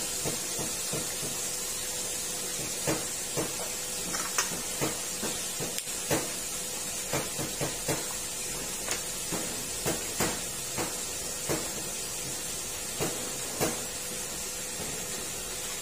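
Crab pieces deep-frying in a wok of hot oil: a steady sizzling hiss with irregular sharp pops and crackles.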